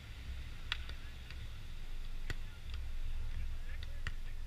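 Wind rumbling on the microphone, with scattered light clicks and one sharp slap of a volleyball being struck about two seconds in.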